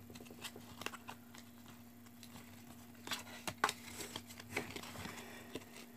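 Faint scattered clicks and rustles of Match Attax football trading cards being handled and slid against each other in the hand, over a steady low hum.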